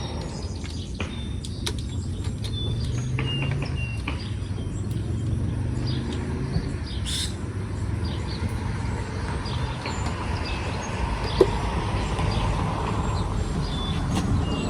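Low, steady rumble of a motor vehicle running nearby, with birds chirping and a single sharp click about eleven seconds in.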